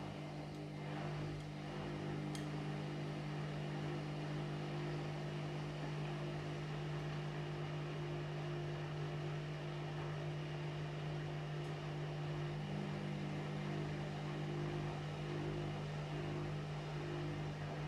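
Washing machine running, its motor giving a steady low hum; a second, slightly higher tone joins about two-thirds of the way through.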